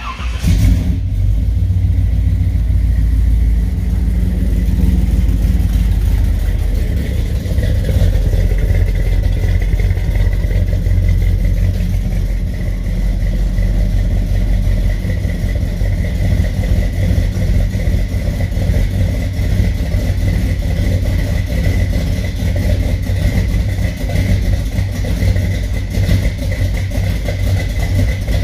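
1975 Chevy K5 Blazer's 454 big-block V8 with FiTech throttle-body fuel injection catching on a cold start at the very beginning, after sitting about four months, then settling into a steady, even idle.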